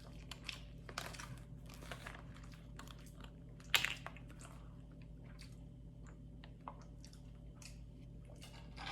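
Quiet eating sounds: chewing and scattered light clicks of utensils, one louder click about four seconds in, over a steady low hum.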